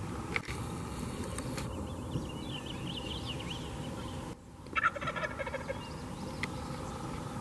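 Wild turkey tom gobbling: a rattling gobble about three seconds in, then another, louder call about five seconds in.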